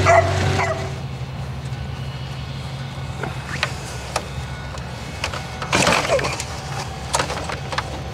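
A utility cart engine running low, cutting off about a second in. Then faint handling clicks, and about six seconds in one short rasp as the starter cord of a backpack leaf blower is pulled, without the engine catching.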